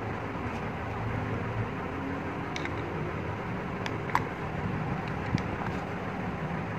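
A few light metallic clicks of a screwdriver working the screws on an LPG reducer's metal housing, the sharpest about four seconds in. A steady background rumble runs underneath.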